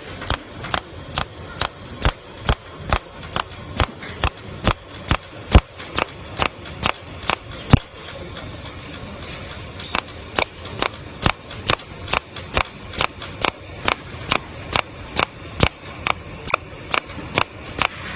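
Cold welding machine pulsing as it welds thin aluminium: a steady train of sharp clicks, about two to three a second. The clicking stops for about two seconds midway, then starts again at the same pace.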